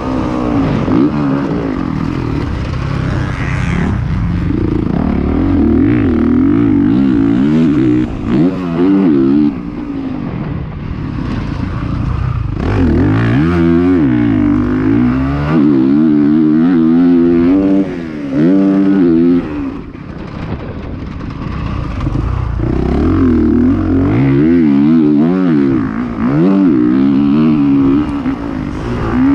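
Motocross dirt bike engine under hard riding, revving up through the gears with its pitch climbing and falling again and again, the throttle chopped off briefly every several seconds.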